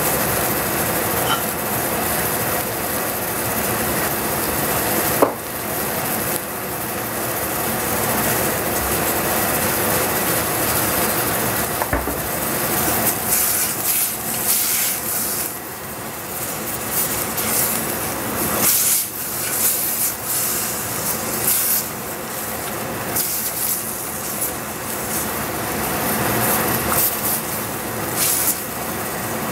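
Wooden spatula stirring and scraping chard around a stainless steel saucepan, the rubbing strokes coming repeatedly from about halfway through, over a steady rushing noise.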